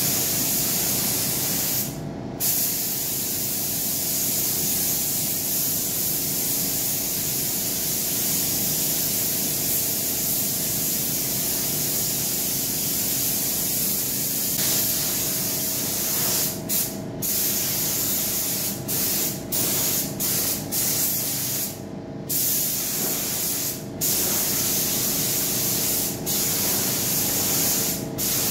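Compressed-air gravity-feed spray gun spraying primer onto a plastic motorcycle fairing: a steady hiss over a low steady hum. The hiss breaks off briefly once early and several times in the second half, as the trigger is released between passes.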